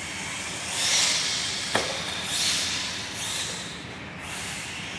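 Electric RC cars running on an indoor clay track, their tyres and drivetrains making hissing swells as they pass, with a single sharp knock a little under two seconds in.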